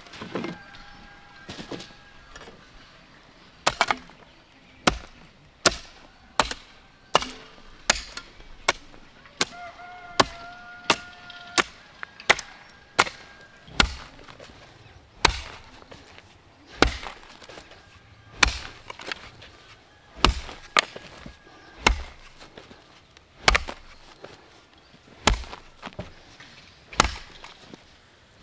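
Wood being chopped with a blade: sharp chopping strokes about once a second, a little uneven in rhythm.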